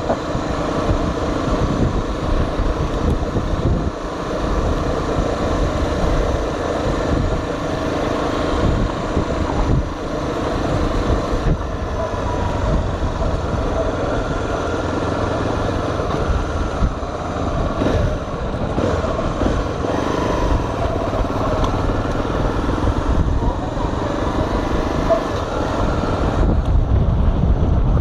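Honda XR 250 Tornado's single-cylinder four-stroke engine running steadily as the motorcycle is ridden, with a low rumble growing louder near the end.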